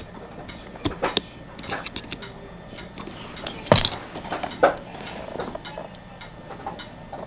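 Irregular small metallic clicks and taps as pliers and fingers work the brass-cased rotary control switch on the electric blanket controller's circuit board; the sharpest click comes a little under four seconds in.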